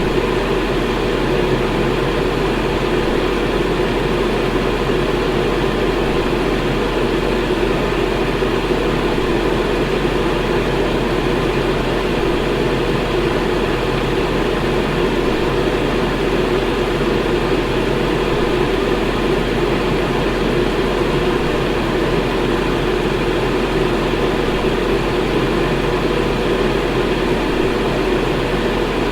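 Electric fan running steadily: an even rush of moving air with a low hum beneath it.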